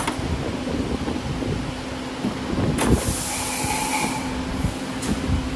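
CNC camless spring forming machine running as it forms flat wire hook springs: a steady machine hum under low rumble, with a few sharp clicks from the tooling and a brief hiss about three seconds in.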